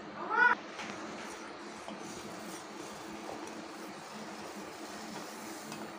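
A steady low hum with an even hiss over it, and a short rising vocal sound about half a second in.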